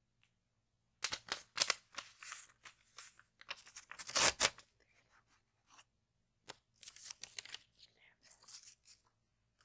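A sheet of paper being ripped out of a spiral-bound notepad along the wire binding, in a series of short tearing pulls with the loudest rip about four seconds in. Quieter rips and paper rustles follow near the end.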